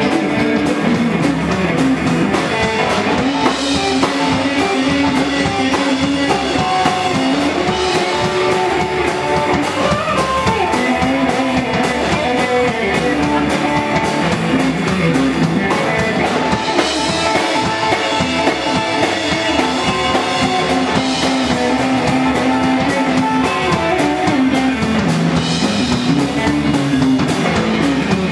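Live rock and roll band playing at a steady beat: electric guitar over upright bass and drum kit.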